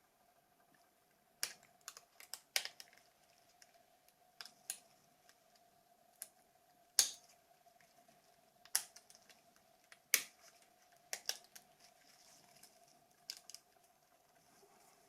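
About a dozen sharp, irregularly spaced plastic clicks and taps of a Nokia 2760 mobile phone's keypad and housing parts being handled and pressed into place, over a faint steady hum.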